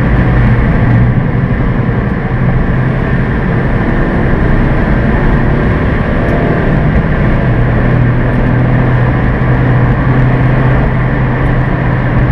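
Suzuki hatchback's engine droning under way on the track, heard from inside the cabin with road and wind noise over it. The engine note weakens about two seconds in and comes back stronger past the middle.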